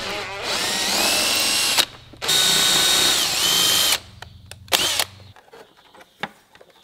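Cordless drill drilling out the two rivets that hold the flap plate on a BMW 2002 heater box: two runs of about one and a half and two seconds, each rising in pitch as the motor spins up, then a brief third burst about a second later.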